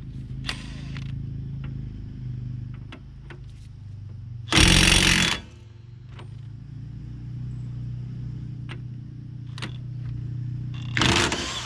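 Impact wrench hammering at the hub nut in two short bursts, about five seconds in and again near the end, over a steady low hum with a few light clicks between.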